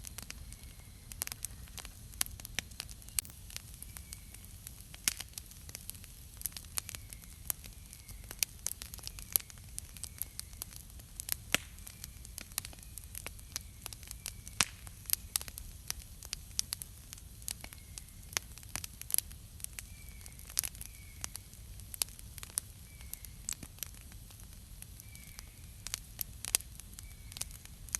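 Wood campfire crackling: irregular sharp pops and snaps over a low, steady hiss of burning, with faint high chirps now and then.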